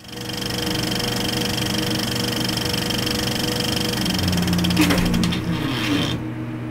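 Logo-intro sound effect: a steady mechanical buzzing drone with held tones, rising and falling pitch sweeps about five seconds in, then the high part cuts off, leaving a lower hum.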